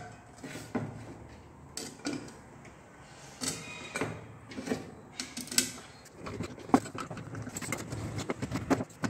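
Hyundai i20 ECM's metal case being reassembled by hand: scattered clicks and knocks as the cover is fitted. In the last couple of seconds a screwdriver drives its screws, with a run of quick small clicks.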